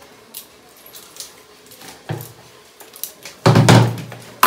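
Kitchen clean-up: light clinks and knocks of steel utensils and a cloth wiping the counter. About three and a half seconds in comes a brief loud vocal sound, the loudest thing here.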